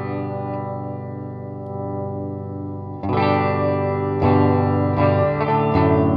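Epiphone Les Paul 100 electric guitar played through an amplifier: one chord rings out for about three seconds, then a run of chords is strummed in quick succession.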